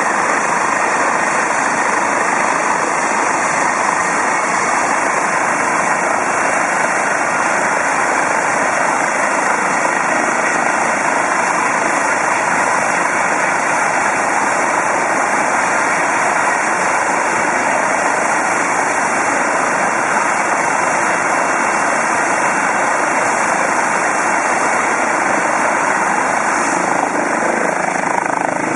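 Eurocopter EC135 helicopter running on the ground before lift-off: its twin turbine engines and spinning rotor make a loud, steady rushing noise.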